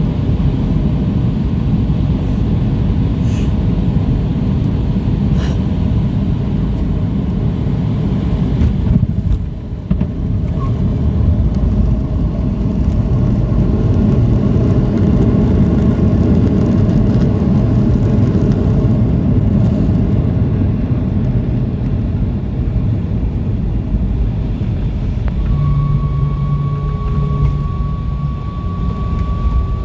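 Boeing 737-700 jet engines during landing: a loud, steady low rumble that dips briefly about nine seconds in. A steady high whine joins in for the last few seconds.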